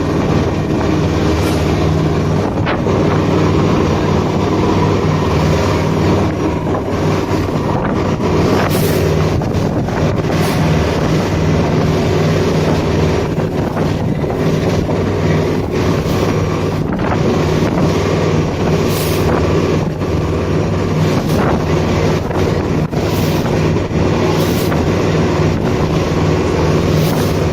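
Motorboat engine running steadily under way, with wind buffeting the microphone in brief gusts.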